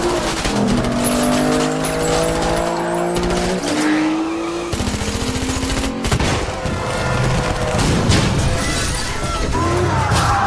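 Film soundtrack of a car scene: car engine sound with tyre squeal near the end, over held musical tones that step in pitch during the first few seconds.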